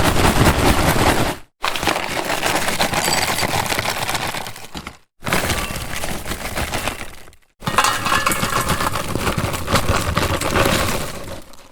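A run of separate sound-effect clips, each a couple of seconds long and cut off by short silent gaps: dense, noisy clatter that fades out near the end.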